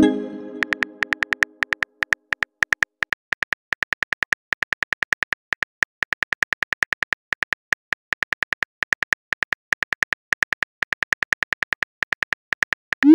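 Phone keyboard typing clicks: a quick, slightly irregular run of taps, several a second, as a text message is typed out. It opens with a short pitched message chime that fades over about two seconds, and a rising swoosh comes right at the end.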